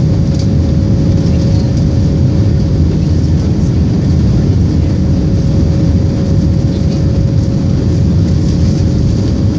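Steady in-flight cabin noise aboard an Airbus A321-200 shortly after takeoff: a low, even rumble of the jet engines and rushing airflow, with a constant steady hum.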